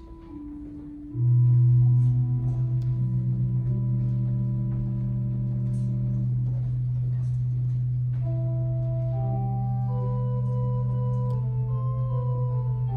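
Handbell choir music: a slow melody of ringing bell notes over a low, organ-like note that comes in about a second in and is held steady with a slight pulse.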